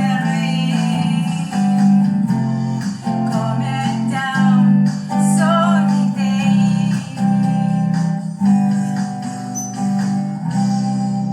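Music: strummed guitar with a singing voice, settling into a held chord near the end.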